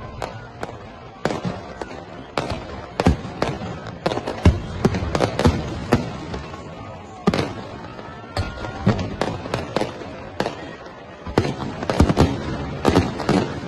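Fireworks display: aerial shells and firecrackers going off in a rapid, irregular string of bangs and crackles. The bangs are busiest about four to six seconds in and again near the end.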